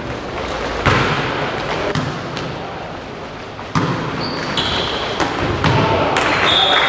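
Volleyball rally on a wooden indoor court: a string of sharp hits of the ball, echoing in a large hall, with short high squeaks of sneakers on the floor from about the middle on.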